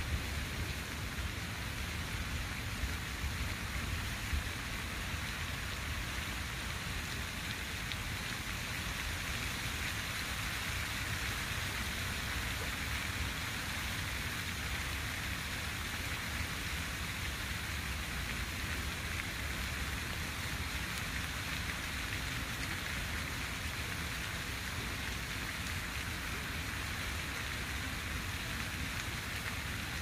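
Water fountain splashing steadily: a continuous hiss of falling water with a low rumble underneath.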